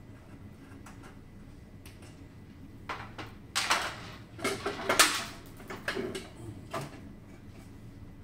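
Knocking, scraping and rattling of a cover panel being worked loose and pulled off a medical resuscitator unit. A run of sharp knocks and rubs starts about three seconds in and is loudest around five seconds.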